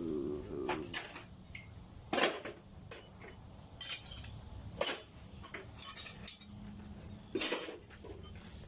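Irregular sharp metallic clinks and knocks, about five louder ones spread a second or so apart with lighter taps between, as metal things are handled and set down.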